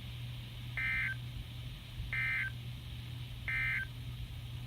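Emergency Alert System end-of-message data bursts from a NOAA Weather Radio receiver: three short, identical buzzy digital chirps about a second and a half apart, marking the end of the flash flood warning. A steady low hum from the receiver runs underneath.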